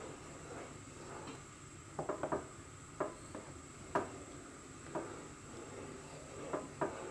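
Wooden spoon stirring milk in a pan for kheer, knocking against the pan's side as it goes round: a quick run of three taps about two seconds in, then single taps about once a second, and two more near the end.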